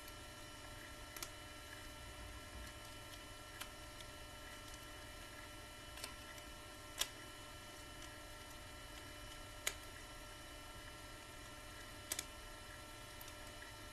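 Occasional small sharp clicks of plastic action-figure parts being handled and fitted together, about six in all, over a steady faint electrical hum.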